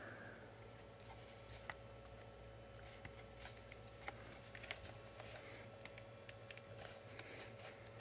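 Faint, scattered small clicks and scrapes of a plastic spudger prying at the soft plastic case of a Dell Inspiron 15 7000 laptop, about one tick every second.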